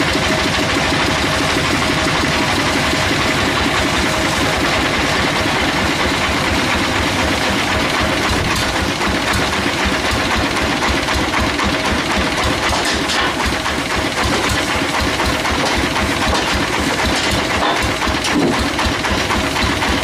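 Sawmill engine running steadily at constant speed, a dense fast pulsing with a thin steady tone on top.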